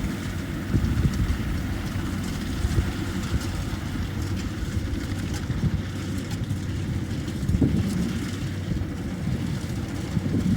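Kubota rice combine harvester's diesel engine running steadily with a low, continuous drone.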